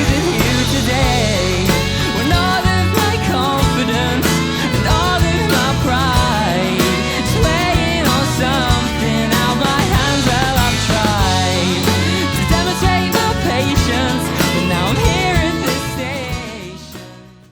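Guitar-band rock music, fading out over the last second or so.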